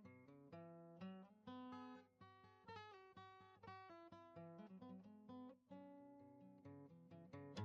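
Quiet background music: acoustic guitar picking a melody, note after note.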